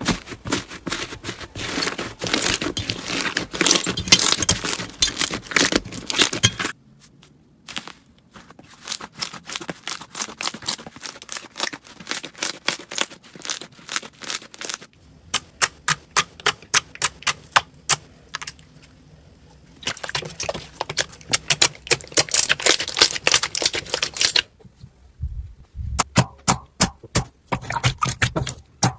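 Hands squeezing, poking and stretching slime, making rapid sticky clicks, crackles and small pops. It comes as a string of short clips that change abruptly several times, some dense and crackly and others sparser single pops.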